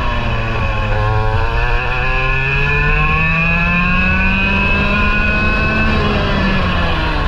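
Parilla SS20 two-stroke kart engine, heard onboard under hard acceleration. It pulls low out of a corner, rises steadily in pitch for about five seconds, then drops off near the end as the driver lifts for the next corner.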